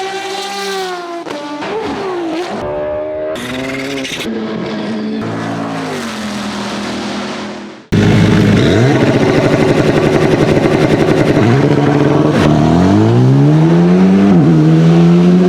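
Alpine A110 R-GT rally car's 1.8-litre turbocharged Renault straight-four engine under hard driving, its pitch rising and falling as it revs through the gears. About eight seconds in the sound jumps abruptly louder and closer, and near the end the engine climbs steeply in pitch under acceleration.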